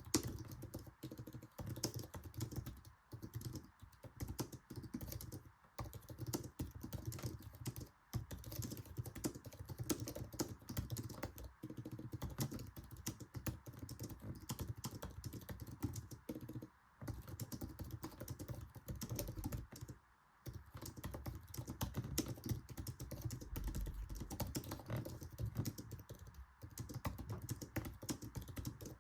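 Fast continuous typing on an Apple Magic Keyboard: a dense stream of quiet low-travel scissor-switch key clicks, broken by a few short pauses.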